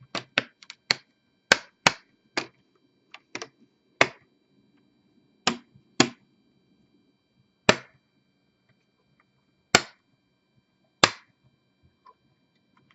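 Plastic screen bezel of an HP Pavilion 15T-AK000 laptop being pressed along its edges, its clips snapping into the lid: about fifteen sharp clicks, several in quick succession at first, then single snaps a second or two apart.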